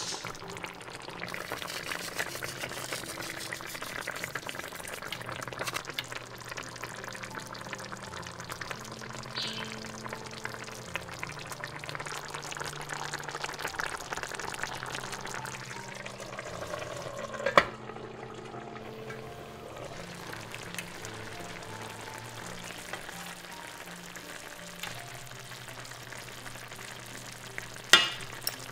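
Chicken legs frying in a pan with onions, a steady sizzle under soft background music. A sharp click about two-thirds of the way through, and near the end metal forks clink against the pan as the pieces are turned.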